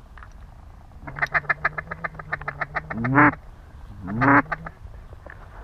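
Duck call imitating a hen mallard: a quick run of short quacks, about eight a second, then two louder, drawn-out quacks about a second apart.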